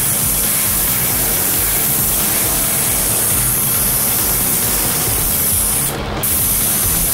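Hiss of a gravity-feed air spray gun spraying paint onto a truck's metal bed panel. The hiss is steady, with a brief break about six seconds in.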